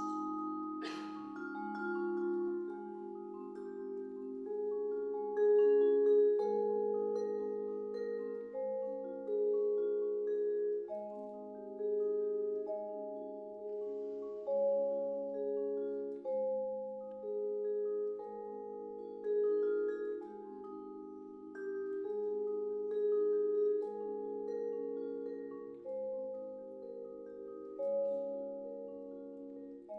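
Vibraphone playing slow ballad chords: struck notes ring on and overlap with a long sustain, a new chord or melody note every second or two. A short sharp click about a second in.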